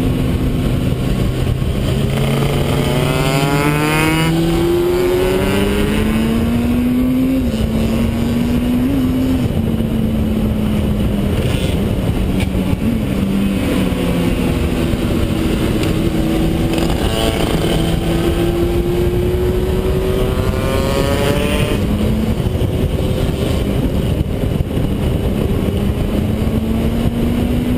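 Motorcycle engine heard from onboard under hard acceleration, its pitch climbing through the revs and dropping briefly at gear changes, with steady wind rush over the rider.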